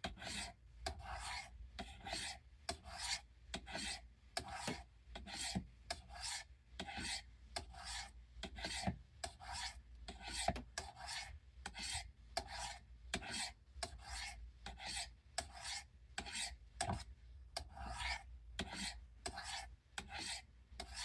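Steel knife blade stroked along the rods of a Spyderco sharpener, a steady scraping rhythm of about two strokes a second, stopping near the end. It is sharpening a factory edge that came dull.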